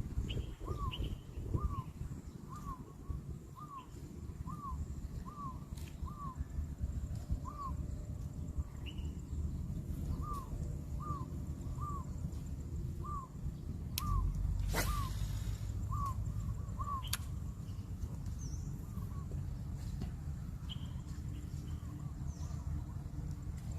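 A bird calling a short, hooked note over and over, about twice a second, over a steady low rumble. There is a brief rustle about fifteen seconds in.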